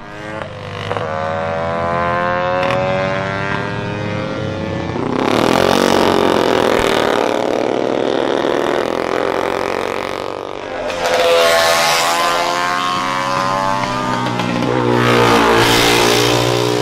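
Racing engines at full throttle passing one after another: a rally car, then racing motorcycles. The pitch climbs through the gears and falls away, with three louder passes about five, eleven and fifteen seconds in.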